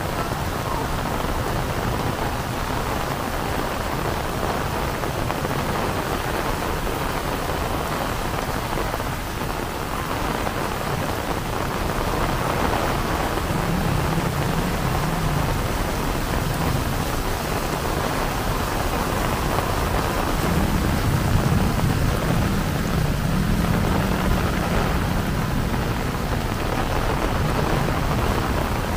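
Heavy rain pouring down steadily. Low rumbles of thunder come in about halfway through and again later on.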